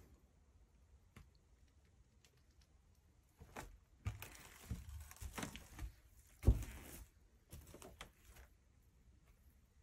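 Footsteps and knocks on a wooden barn floor, starting about three and a half seconds in, irregular, with one heavier low thump a few seconds later.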